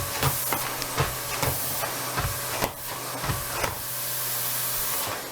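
Bosch GL-30 Pro Energy bagged cylinder vacuum cleaner running with a steady airy hiss and a low hum, with a few knocks along the way. It is switched off about five seconds in.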